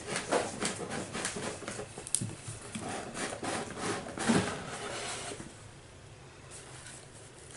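A large cardboard drawer sliding out of a cardboard advent calendar box: scraping and rubbing with small knocks, stopping about five seconds in.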